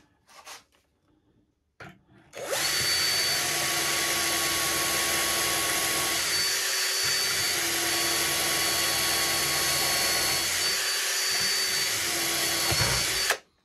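Cordless drill running steadily, boring a through-hole for a handle in a white oak and epoxy board through a Kreg drilling jig. It starts about two seconds in and stops just before the end.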